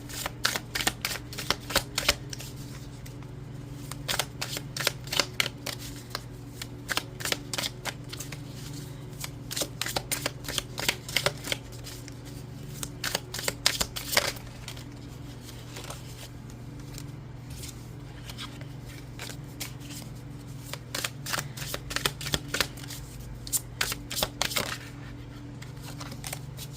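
A deck of oracle cards being shuffled by hand: several bouts of rapid card clicks and flutters, with short pauses between them. A steady low hum runs underneath.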